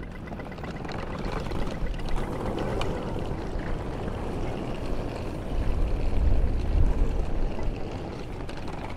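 Rushing outdoor noise with a deep rumble that swells and gusts, loudest about six to seven seconds in.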